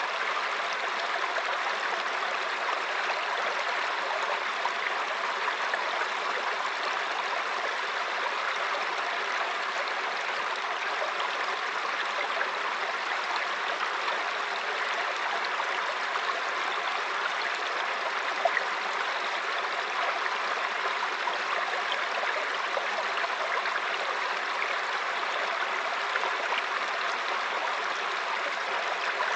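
Mountain stream flowing and babbling over rocks: a steady rush of water with small splashes throughout.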